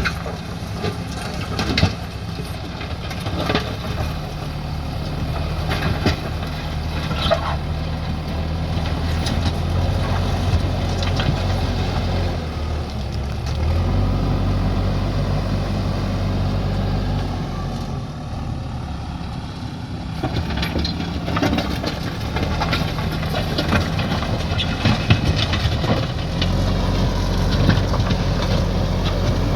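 JCB 3DX backhoe loader's diesel engine running, its pitch stepping up and down several times as the load changes, with scattered short knocks and clanks over it.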